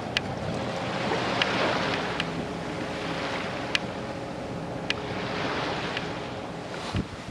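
Sea water rushing along a sailing boat's hull and wind buffeting the microphone, with a few sharp clicks scattered through.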